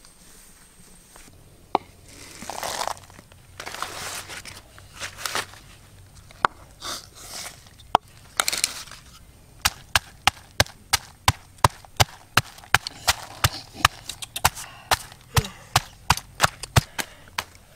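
Food being prepared by hand: scattered rustling and handling, then from about halfway a steady run of sharp, even strikes, about three a second, like chopping on a board.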